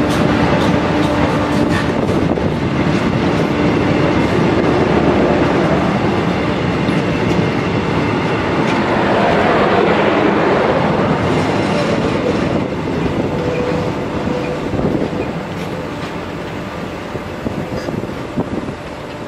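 Eastern & Oriental Express passenger carriages rolling past, their steel wheels clacking over the rail joints. The sound grows fainter over the second half.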